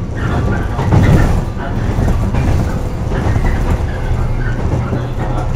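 Running sound of a JR West 115-series electric train heard from the motor car KuMoHa 115-1659: a steady low traction-motor hum and wheel-on-rail noise as the train runs along the track, swelling louder about a second in.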